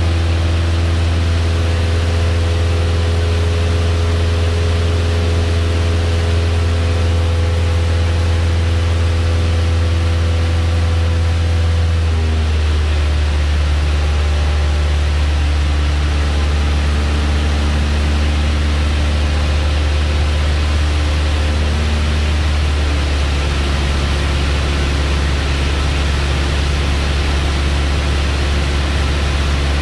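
Light airplane's piston engine and propeller droning steadily, heard from inside the cockpit. The engine note steps down twice, near the middle and again about two-thirds through, as power is reduced for the descent to land.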